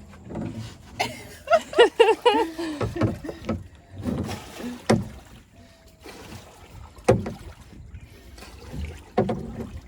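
Small boat being poled along with long sticks: scattered knocks and water sounds, with a short high-pitched call a second or so in.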